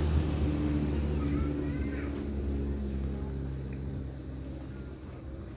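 Large ferry's engine running with a low, steady hum that slowly grows fainter.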